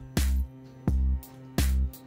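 Background music with a steady beat: three evenly spaced deep drum hits over a held bass line.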